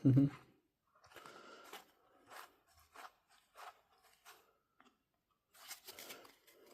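A thump at the start, then trading cards being handled: a run of short scrapes and rustles as cards are slid and shuffled against one another.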